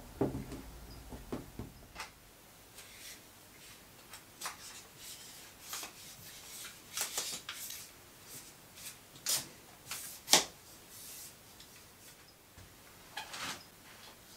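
Handling noise from a telescopic selfie stick being worked by hand: scattered rubbing and sliding sounds with sharp clicks, the loudest two clicks about nine and ten seconds in.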